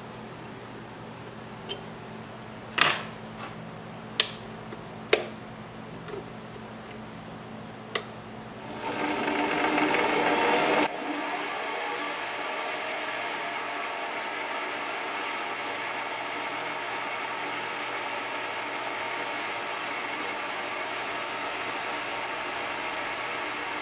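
Sharp metal clicks of a chuck key and jaws on a Craftex 7x8 mini lathe's three-jaw chuck, four of them in the first eight seconds. Then the lathe's motor starts, rises in speed and runs steadily with the spindle turning.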